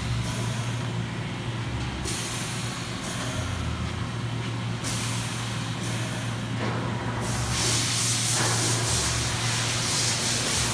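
Machine-shop noise around a powered-up CNC bridge mill: a steady low electrical hum, with on-and-off hissing that gets louder and more continuous about seven seconds in.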